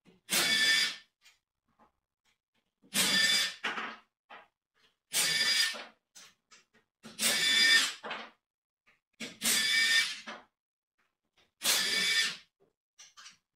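HiKOKI 36V cordless impact wrench driving bolts on a scooter engine in six short bursts about two seconds apart, its motor whining under the rapid hammering. The wrench is running again after the repair of its fuse.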